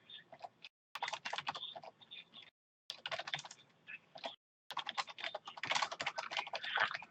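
Typing on a computer keyboard: quick runs of keystrokes broken by short pauses, about a second, two and a half seconds, and four and a half seconds in.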